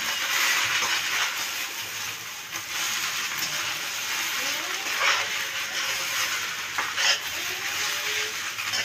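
Rice vermicelli sizzling in oil in a wok as it is stirred and tossed with a metal utensil, a steady frying hiss with scrapes and a couple of sharper clinks of the utensil on the pan.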